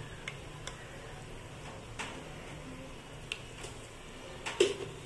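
Thick mutton dal curry simmering in an aluminium pot, giving scattered short pops about once a second, the loudest about four and a half seconds in, over a low steady hum.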